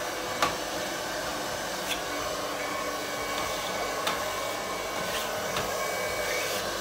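Handheld household hair dryer blowing steadily on thin peel-and-stick wallpaper, heating it to stretch the paper and work out air bubbles. A few short clicks are heard along with it.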